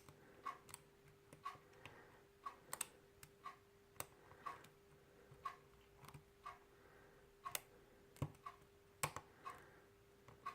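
Faint, irregular clicks of a lock pick tapping and lifting the pins of a custom challenge pin-tumbler lock one by one, about one click every half second to a second, each with a short small ring, over a faint steady hum.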